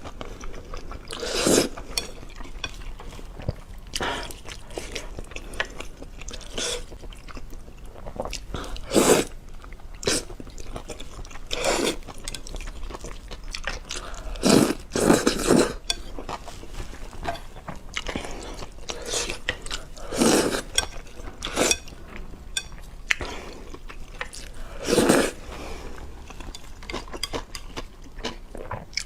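Close-miked eating: irregular bouts of chewing and biting, some crunchy, with occasional clinks of cutlery or dishes.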